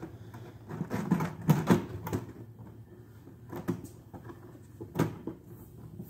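Light knocks and clunks of the plastic cover of a Raymarine R418HD radar radome being shifted and seated on its base: a cluster of them about a second in, then a few single ones.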